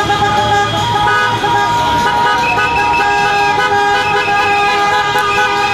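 Several car horns honking at once, long held tones overlapping one another, over the noise of a crowd.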